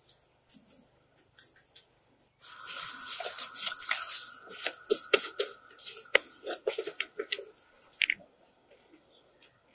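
Water running and splashing for about six seconds, starting a couple of seconds in, with scattered clicks and knocks.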